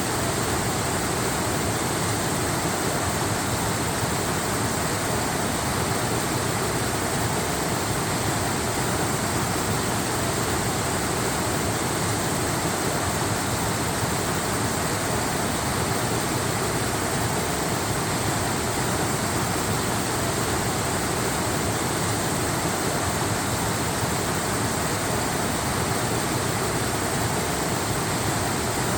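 Waterfall rushing, a steady even roar of falling water with no change.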